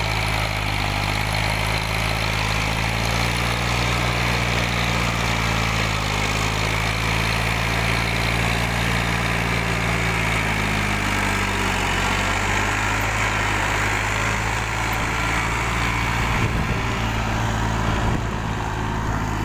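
Ford 3600 tractor's three-cylinder engine running steadily while it drags an implement through dry soil.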